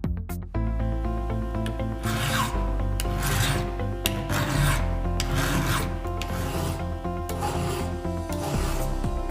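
Flat file rasping across a steel chainsaw chain's depth gauge through a depth gauge tool, in about six separate strokes: the depth gauge is being filed down even with the template. Background music plays throughout.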